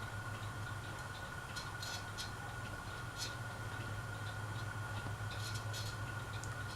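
Dayton Leading Edge industrial ceiling fan running, its motor giving a steady low hum with a thin steady whine above it and light clicks now and then.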